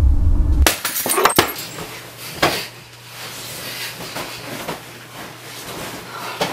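A low rumbling drone cuts off abruptly under a second in. Then bedding rustles, with scattered sharp knocks and thumps, as someone thrashes about on a bed in blankets and pillows.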